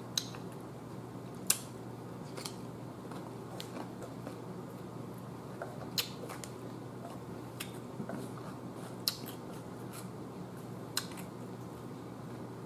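Chewing crisp cucumber slices: a handful of sharp crunches at irregular intervals, the loudest about a second and a half in and about nine seconds in, over a steady low hum.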